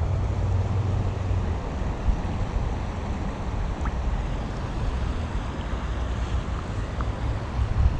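Wind buffeting the microphone: a steady low rumbling rush with no pauses.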